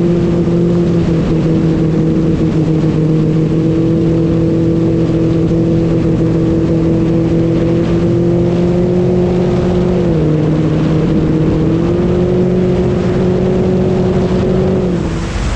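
A motor droning steadily at one pitch, dipping lower about ten seconds in and rising back two seconds later, then cutting off just before the end, leaving a steady rushing noise.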